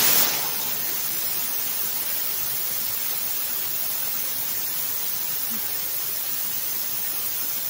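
Home-built brass ArcJet thruster firing: compressed air hissing steadily out of its nozzle while an electric arc heats it. The hiss is loudest at the very start, then holds level.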